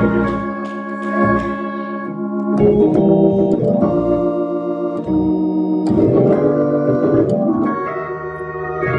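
Organ playing the accompaniment to a gospel hymn: full held chords that change every second or two.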